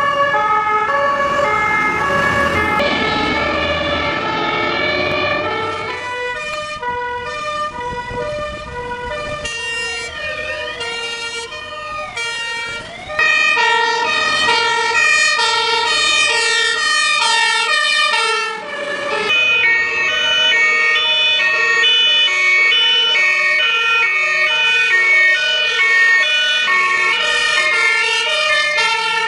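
Fire engine sirens: a two-tone siren switching back and forth between a high and a low note, with a stretch near the middle where a siren sweeps quickly up and down. Engine and road rumble lies under the siren for the first few seconds.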